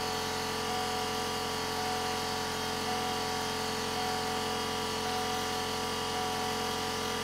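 2003 Hummer H1's engine idling steadily, heard from inside the cab, with a thin high tone that drops out briefly about once a second.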